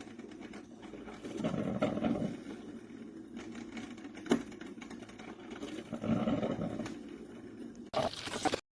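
BLACK+DECKER 12-cup drip coffee maker brewing: low gurgling surges as the heater pushes hot water up, swelling twice a few seconds apart, with a sharp click about four seconds in.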